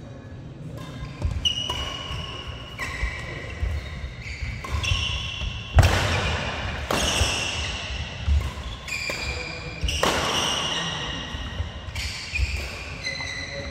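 Badminton rally: racket strings striking the shuttlecock with sharp smacks every second or two, mixed with short high squeaks of court shoes on the synthetic floor and thuds of footwork.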